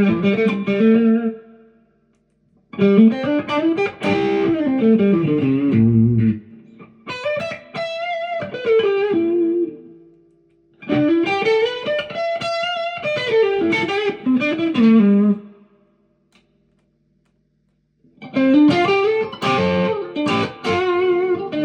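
2005 Fender Stratocaster Deluxe electric guitar played through an amp: quick melodic runs of single notes climbing and falling, in four phrases with brief pauses between them.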